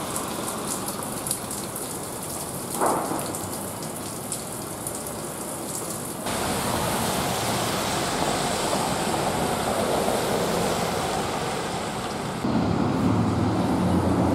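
Steady rain on a wet city street, an even hiss that shifts in character twice. Near the end a vehicle engine's low hum comes in under it.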